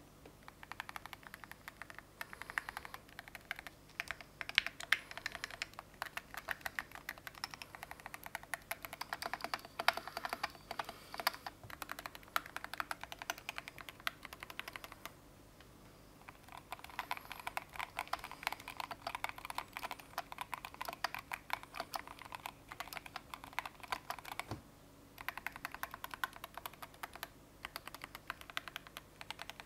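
Typing on a Keychron Q1 HE, a gasket-mounted 75% keyboard with Gateron magnetic linear switches: a fast, continuous run of keystrokes, with a short pause about 15 seconds in and another briefer one around 25 seconds.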